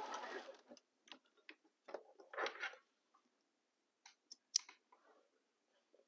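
A home sewing machine finishes stitching and stops within the first second. Then come a few small clicks and brief rustles of fabric and thread being handled at the machine, with one sharp click about four and a half seconds in.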